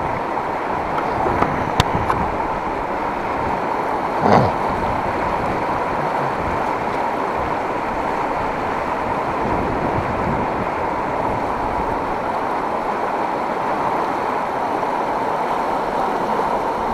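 Steady rushing of a fast-flowing river, with a short click about two seconds in and a brief louder sound about four seconds in.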